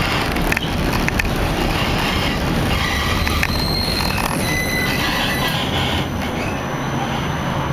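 ULF B low-floor tram running, heard from inside the car: a steady rumble of wheels on rail, with brief high-pitched wheel squeals coming and going about three to five seconds in.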